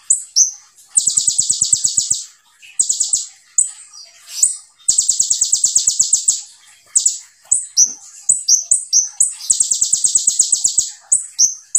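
Male Van Hasselt's sunbird (kolibri ninja) singing: fast, high-pitched trills of rapidly repeated notes, three of them long (one to two seconds), alternating with short chirps.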